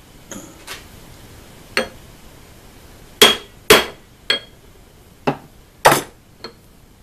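Small hammer tapping a machined aluminium bearing block down over a ball bearing to seat the press fit: about nine sharp metallic taps at irregular spacing, the hardest ones a little past the middle and near the end, some with a brief ring.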